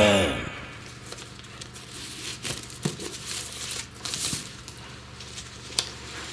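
A rock song dies away in the first half second. Then gift wrapping rustles and crinkles as a ribbon is pulled off a small wrapped present, with scattered short crackles and clicks.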